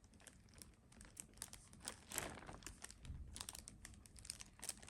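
Faint crinkling and rustling from a baby's hands fiddling with something, a quick irregular run of small clicks.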